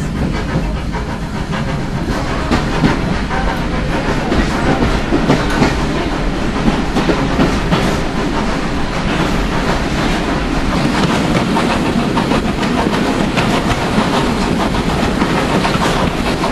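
Heritage steam railway carriage running along the line, heard from on board: a steady loud rumble with the wheels clattering over the rail joints.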